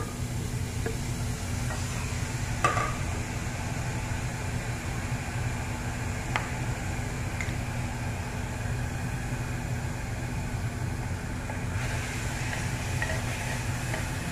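Chopped onion frying in an aluminium pressure cooker used as an open pan, stirred with a wooden spatula that knocks against the pot a few times, the loudest knock about three seconds in. A steady low hum runs underneath.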